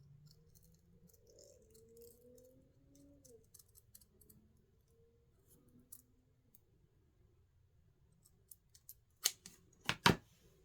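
Faint clicks and handling noises of small tabletop crafting work, then three sharp clicks near the end, the last two close together.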